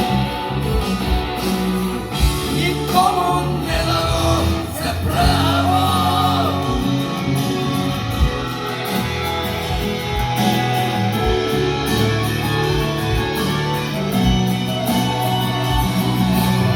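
Band music with a steady drum beat, bass and chords, and a melodic lead line that bends in pitch a few seconds in; no lyrics are sung.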